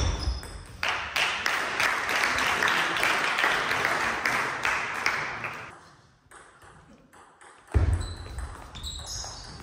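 Table tennis ball ticking sharply off the table and bats. For several seconds in the middle a dense, steady noise covers the ticks, then the sound drops almost to silence. A low thump and more ball ticks follow near the end.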